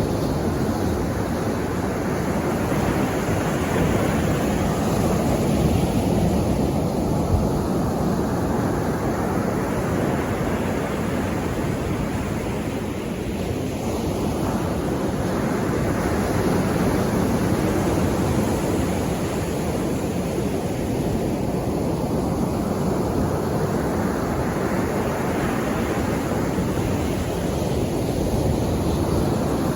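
Sea waves breaking and washing up the shore in a continuous rush, swelling and easing every six to eight seconds as each wave comes in and draws back.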